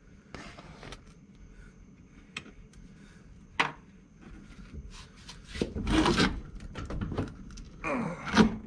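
Steel door of a 1974 VW Super Beetle being worked off its hinges: a single click, then a run of scraping and clunks as the door comes free of the A-pillar, loudest near the end.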